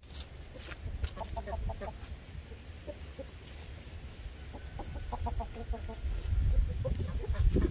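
Chickens clucking: two quick runs of short clucks, about a second in and again about five seconds in, over a low rumble that grows near the end.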